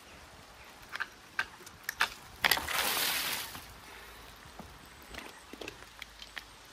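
Plastic rainwater downpipe being worked loose and pulled apart at its base, clogged solid: a few clicks and knocks, then about a second of louder rushing noise about two and a half seconds in, then scattered small knocks.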